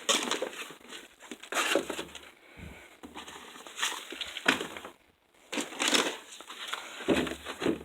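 Packaged soups and other food items being handled and shifted about in a cupboard: irregular crinkling and rustling of packaging with light knocks.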